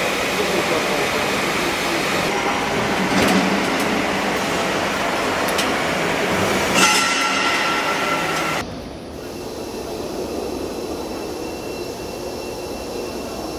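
Hangar background noise: a steady rushing machine noise with faint thin whines. About eight and a half seconds in it cuts abruptly to a quieter steady hum with a thin high tone.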